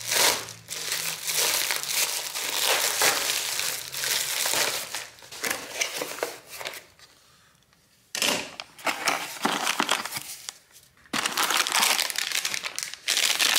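Cardboard packaging of a new laptop battery being opened and handled, rustling and scraping in irregular bursts with two short pauses, about seven and eleven seconds in.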